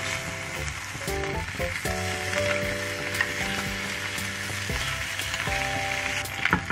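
Slices of canned ham sizzling as they fry in a rectangular nonstick egg pan, with a few light clicks as wooden chopsticks turn them over.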